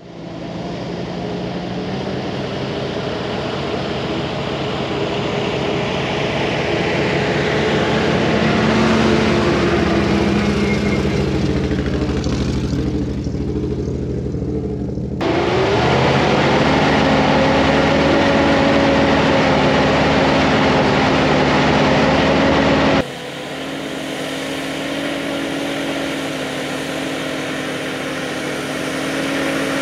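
GAZ-66 off-road truck engine running under way, its pitch rising and falling as it revs and pulls. The sound changes abruptly about halfway through and again about two-thirds through.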